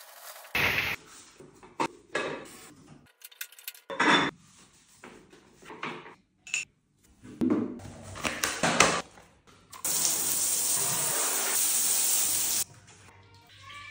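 Bathroom cleaning sounds in quick cuts: metal clinks and rattles, knocks and wiping, then about three seconds of steady hiss shortly before the end.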